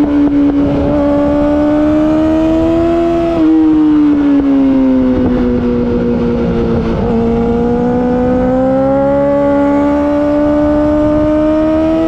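Yamaha R6's inline-four engine with an Akrapovic Evolution racing exhaust, running at high revs on the move. The pitch climbs slowly, drops a little about three seconds in, and sinks with a few crackles around the middle. It then climbs steadily again.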